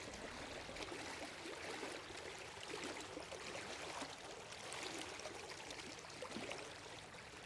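Flowing water, running steadily and faintly with a light gurgle.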